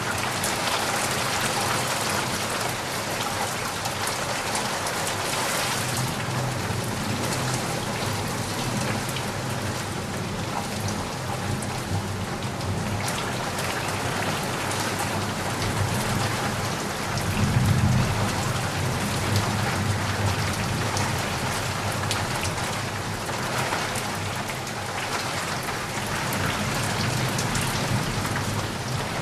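Steady rain falling on a surface, a constant even hiss of drops. A low rumble of thunder swells up briefly about two-thirds of the way through.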